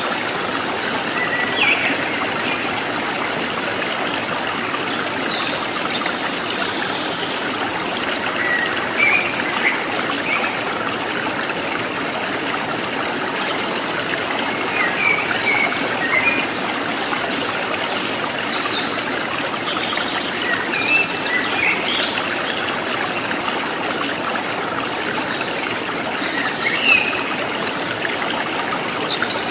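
Forest stream trickling and gurgling steadily, with short wild bird chirps scattered throughout.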